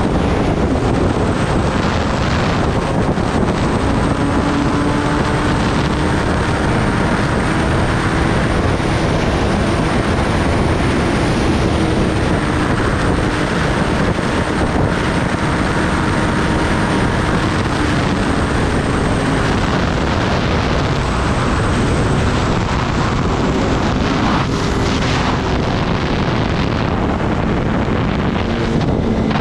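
Kawasaki Ninja ZX-10R's inline-four engine running at a steady highway cruise. Its drone is half buried under loud wind rush on the microphone.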